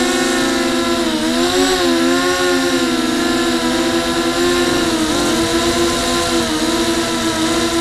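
FPV quadcopter's brushless motors and propellers whining steadily, heard from the onboard camera; the pitch dips and climbs again with throttle changes, briefly about a second in and again about five seconds in.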